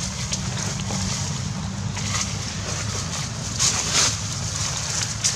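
Wind noise on the microphone: a steady low rumble under a constant high hiss, with two brief louder rustles a little before four seconds in.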